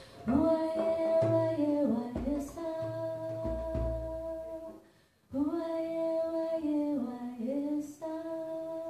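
A woman singing long held, slowly gliding notes, with low drum notes beneath them in the first half. The singing breaks off briefly about five seconds in, then resumes with more sustained notes.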